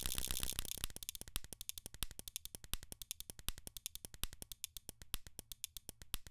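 Recorded pen clicks and snaps played back by Kontakt 5's arpeggiator in a rapid, even stream. At first the hits come so fast they almost blur together, then they slow into distinct ticks as the rate is turned down. The stream stops right at the end.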